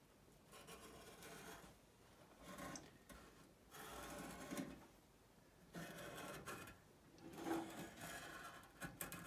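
Sharpie marker drawing a cut line on rough, rusty sheet steel: faint scratchy strokes, each about a second long, repeated half a dozen times with short pauses between.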